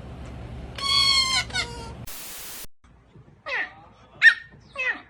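Animal calls: a high, steady-pitched call about a second in, a short burst of hiss about two seconds in, then three short yelps falling in pitch, about half a second apart, in the second half.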